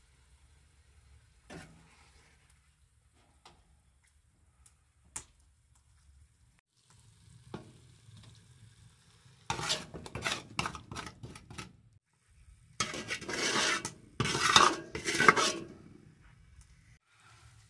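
Metal ladle scooping cooked spinach out of an aluminium pot and scraping and pressing it onto a metal tray. There are a few light clinks at first, then two stretches of wet scraping and clattering from about nine seconds in, loudest a little before the end.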